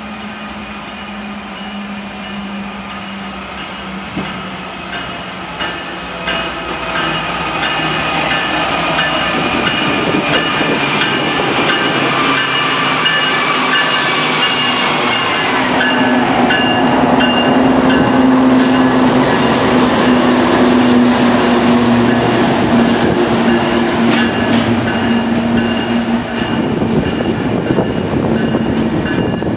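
Union Pacific GE diesel locomotive in dynamic braking, its steady whine growing louder as it approaches, then dropping in pitch as it passes about halfway through. Double-stack container cars follow, rolling by with a rumble and wheel clicks over the rail joints.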